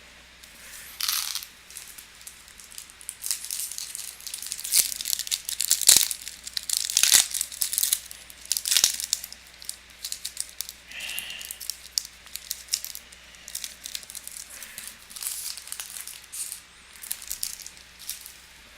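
Crinkling and tearing of foil trading-card pack wrappers being torn open, with the cards being handled. The crackling is densest over the first half and thins out after that.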